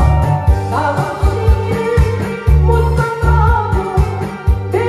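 A woman singing a Korean trot song through a headset microphone and PA, over an accompaniment track with a heavy, regular bass beat.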